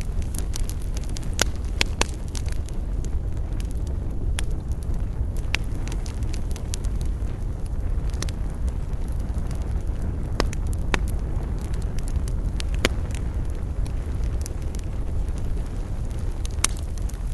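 Wood campfire burning, with sharp irregular crackles and pops every second or two over a steady low rumble.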